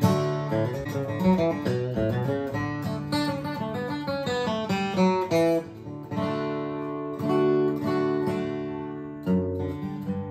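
Alvarez Masterworks acoustic guitar, solid spruce with mahogany back and sides, being picked: a quick run of single notes for about the first half, then slower chords left to ring.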